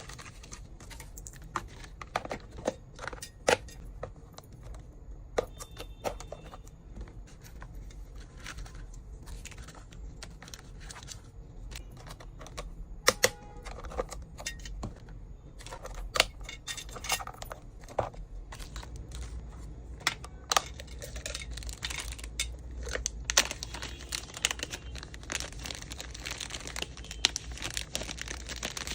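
Hands packing small plastic items and packaging: scattered sharp clicks and taps of hard pieces being handled. From about two thirds of the way in, this gives way to steady crinkling and rustling of plastic wrap or bags.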